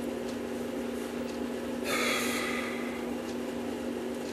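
A short, noisy breath through the nose, like a sniff, about halfway through, over a steady low hum. A few faint small clicks come from brass clock parts being handled.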